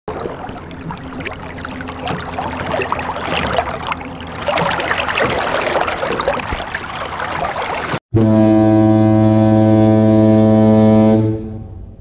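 Canal narrowboat running on the water: outdoor noise over a faint, steady low engine hum. About eight seconds in, a deep ocean liner's horn sounds one long, steady blast of about three seconds, then fades away.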